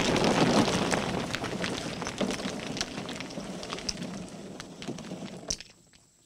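Sound-effect rumble and clatter of a shattered wall's debris falling and settling, many small clacks fading away, with one last sharp clack about five and a half seconds in.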